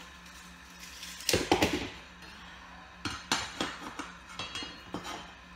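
Metal hand tools, a tape measure and an aluminum speed square, clattering as they are set down and positioned on a vinyl plank: a quick cluster of loud knocks about a second in, then a run of lighter taps and clinks from about three seconds in.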